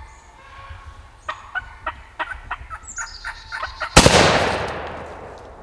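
Wild turkey gobbler gobbling in rattling bursts. About four seconds in, a single loud shotgun shot cracks and echoes away over more than a second.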